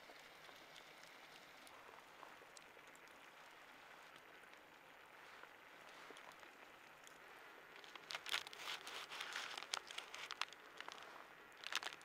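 Faint steady crackle of a campfire with scattered small pops. About eight seconds in, a flurry of louder close clicks and crunches starts, and a short burst of them comes again near the end.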